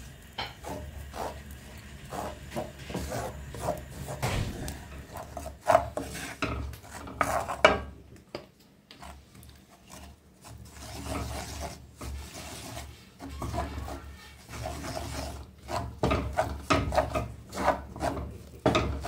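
Irregular rubbing and scraping strokes, with a quieter lull about halfway through.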